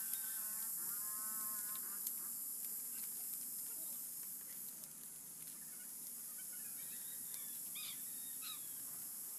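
Coconut palm leaflets rustling and clicking as they are woven by hand, over a steady high-pitched insect drone. A wavering buzz fills the first two seconds, and a few short high chirps come about seven to eight and a half seconds in.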